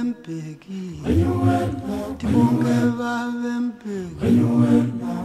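Unaccompanied group of voices singing in harmony: long held chords of a second or more, with short breaks between phrases.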